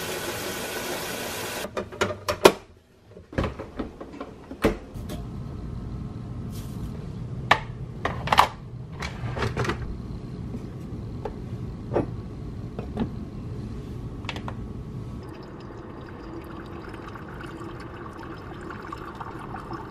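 Kitchen tap running water into a coffee maker's plastic water reservoir, cutting off after about two seconds. Then come scattered clunks and clicks of plastic parts and a mug being handled. From about fifteen seconds in, a steady hum sets in as the coffee maker starts up.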